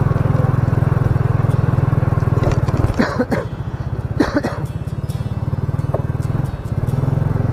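Motor scooter engine running under the rider, its steady low hum dropping about two and a half seconds in to a slower, pulsing beat as the throttle eases, then picking up again near the end. Two short voice-like calls sound over it about three and four seconds in.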